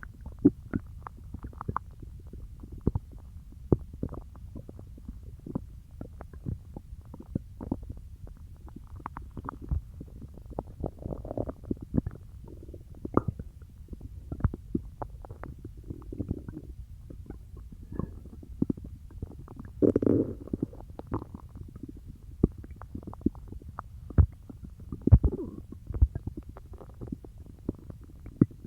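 Human stomach gurgling and growling while digesting peanut butter: frequent short pops and clicks with a longer gurgle every few seconds.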